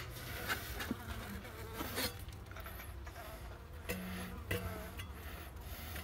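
Honey bees buzzing steadily in an exposed hive. About four seconds in, one bee buzzes close by in a warning to get out. A few light scrapes and knocks come in between.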